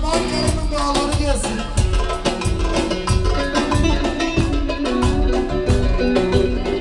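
A live band playing dance music: saxophone and electric bass over a steady drum beat.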